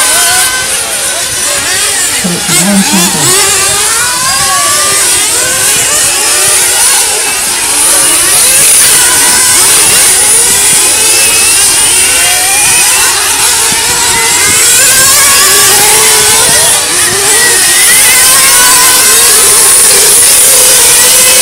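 Several 1/8-scale nitro GT RC cars' small two-stroke glow engines racing together, a high-pitched whine rising and falling as they accelerate and brake, many engines overlapping.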